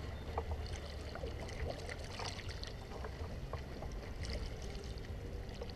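Water splashing and lapping around a kayak as it is paddled, with a couple of splashier strokes. A low steady rumble of wind on the microphone runs underneath.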